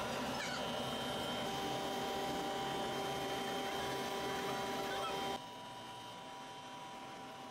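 Steady background hum carrying several steady tones. It drops abruptly in level about five seconds in.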